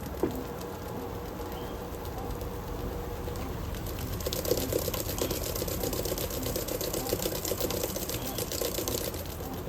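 Electrolux LM08A top-loading washing machine running, its motor and mechanism making a steady rhythmic clicking. About four seconds in, a louder splashing, water-like noise joins and stays for most of the rest.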